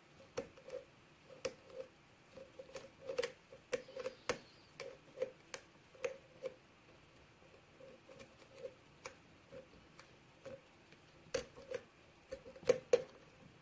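Metal lock pick working the pins of a 7-pin GE pin-tumbler lock under tension: irregular light clicks and ticks as pins are lifted and set, with two louder clicks near the end.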